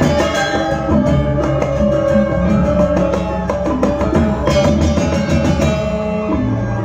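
Balinese gamelan ensemble in Bebonangan style, with bronze gong-chimes and gongs playing fast interlocking strokes over drums and ringing sustained tones.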